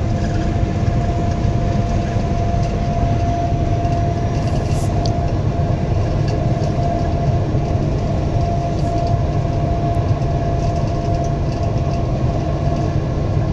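Vehicle cabin noise while driving at road speed: steady low engine and tyre rumble with a thin, constant whine above it.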